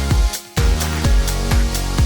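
Electronic dance music with a steady kick-drum beat and a bass line, cutting out briefly about half a second in.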